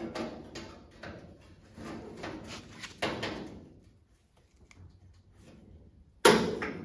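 Clamps being set on a new sheet-metal cowl side panel: metal scraping, rattling and clicking for a few seconds, then a pause and one sharp metallic clack near the end.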